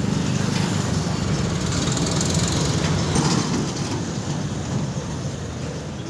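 Engine of a HAMM 311 single-drum road roller running steadily at idle, easing a little in the second half.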